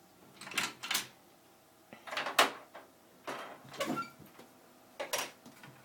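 Small sewing-machine accessories being handled and knocked together: four short bursts of clicking and rattling.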